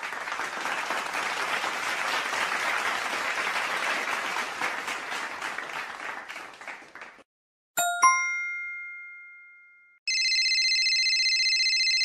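Audience applause with many hands clapping, fading out about seven seconds in. Then a bright bell-like ding, struck twice, rings out for about two seconds, and an electronic phone ring starts near the end.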